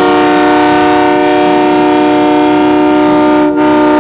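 Truck air horns held in a loud, steady chord of several notes at once, with a brief break about three and a half seconds in.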